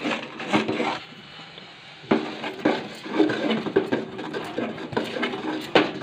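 A spatula stirring and scraping thick mung dal dough in an aluminium pot, with short knocks against the pot. There is a brief pause about a second in.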